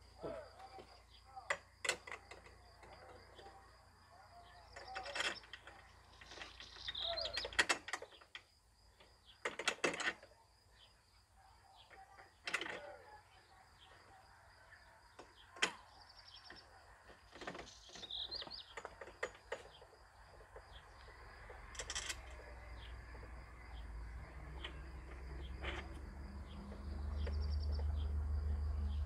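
Scattered clicks and knocks of parts being handled during assembly of a cordless lawn mower, with birds chirping in the background. A low rumble builds near the end and becomes the loudest sound.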